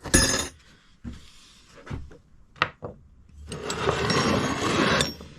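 Steel wrenches being handled on a bench: a sharp metallic clink with a brief ring at the start, a few light taps, then about a second and a half of scraping and rummaging among the tools near the end.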